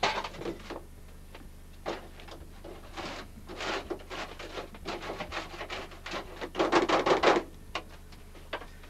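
Repeated scraping strokes of a tool over a beehive's debris tray, clearing out fallen debris and dead bees; a quick run of strokes about three-quarters through is the loudest.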